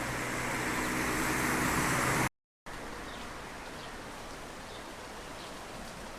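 A car approaching and getting louder, its engine hum under tyre noise, cut off abruptly by an edit about two seconds in. Afterwards a steady outdoor background noise with faint bird chirps.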